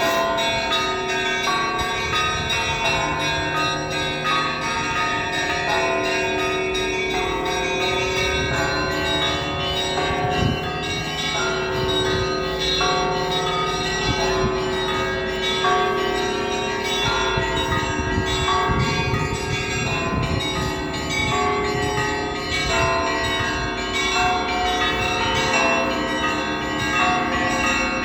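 Russian Orthodox church bells rung together in a continuous peal: many bells of different pitches sounding at once without pause, higher bells struck in quick succession over lower ones that ring on.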